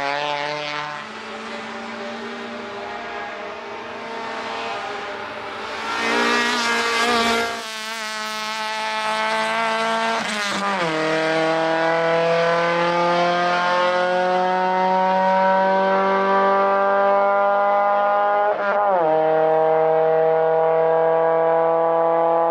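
Opel Kadett GSi race car's four-cylinder engine at full throttle, passing and accelerating away, its note rising through the gears. It is loudest about six to seven seconds in as the car goes by, and the pitch drops sharply at two upshifts, about halfway through and again near the end.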